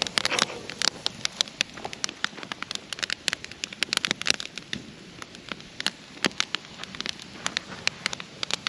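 Campfire crackling and popping in quick, irregular clicks, with a steak frying in a pan set on its coals.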